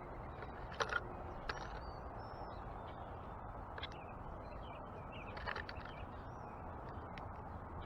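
Backyard birds giving short, scattered chirps over a steady background hiss, with a couple of sharp clicks about a second in.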